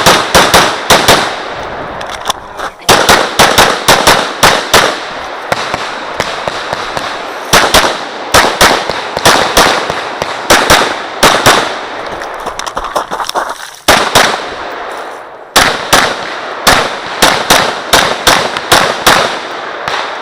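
Glock 34 9mm pistol fired rapidly in quick pairs and strings of shots, in several bursts separated by pauses of one to a few seconds, each shot sharp with a short echo.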